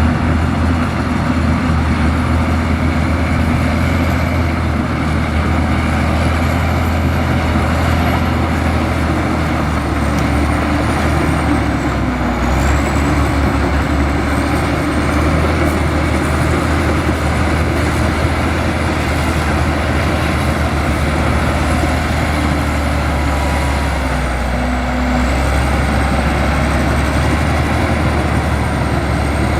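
Heavy diesel engine of a bulldozer or similar earthmoving machine running steadily under work, with a faint high wavering whine above it. The engine note shifts briefly twice, about twelve seconds in and again near the last third.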